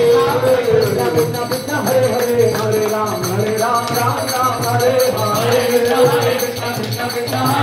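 Devotional kirtan music: a mridanga, a two-headed clay drum, keeps the rhythm under a lead voice singing a wavering chant melody through a microphone, with metallic jingling percussion throughout.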